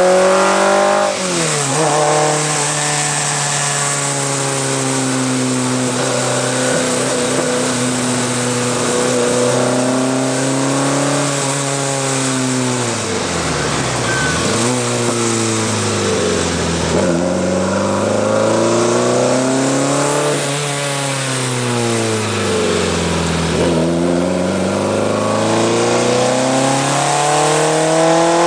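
Alfa Romeo TZ's four-cylinder twin-cam engine being driven on its post-restoration shakedown. The revs fall sharply about a second in and hold fairly steady for a while. Three times they then drop low and climb again, rising near the end.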